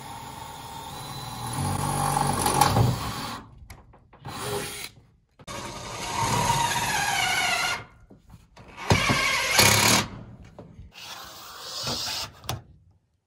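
Cordless 18-volt drill driving roof screws through corrugated steel roof sheeting, in several separate runs with abrupt breaks between them. In one run the motor's pitch falls steadily as the screw bites in.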